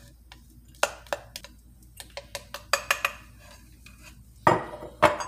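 A spoon clinking and scraping against a glass measuring cup: a scatter of sharp clicks and knocks, with the loudest two near the end.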